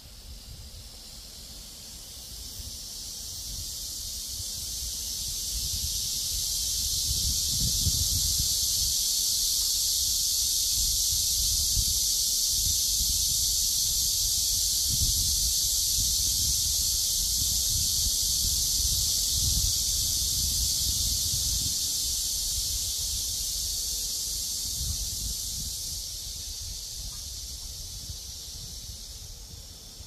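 Cicada chorus: a loud, steady high-pitched buzz that swells over the first several seconds, holds, and fades away near the end. Wind gusts rumble on the microphone underneath.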